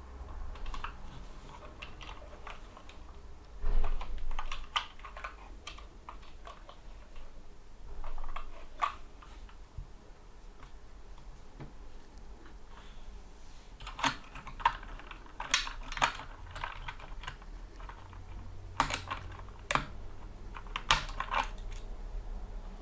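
Typing on a Skyloong SK64 mechanical keyboard with Gateron Brown tactile switches: irregular keystroke clicks, with louder flurries of keys a few seconds in, again around two thirds of the way through, and near the end.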